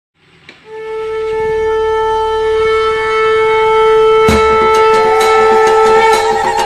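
Music: one long held horn-like note, joined about four seconds in by drum strokes and from about five seconds by a second, wavering note above it.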